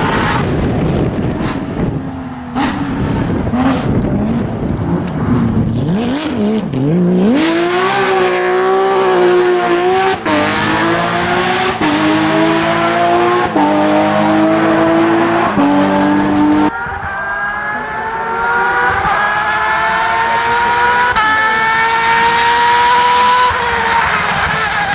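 Porsche flat-six rally car driven hard, engine pitch rising and falling through gear changes and then climbing steadily under full throttle. Sharp cracks and rough noise come in the first few seconds.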